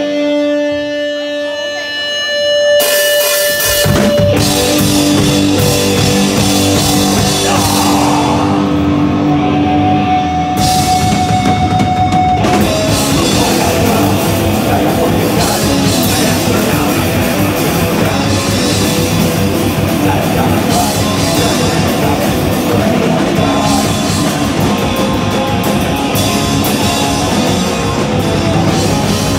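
Live rock band with electric guitars and drum kit: a few held guitar notes ring out, then the drums and full band come in about three seconds in and play on loud and dense.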